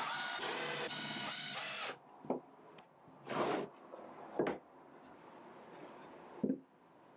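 Cordless drill-driver running steadily for about two seconds as it drives a wood screw into a wooden bracing strip. Then a few short knocks and scrapes as the wooden strip is handled and set down on a plywood panel.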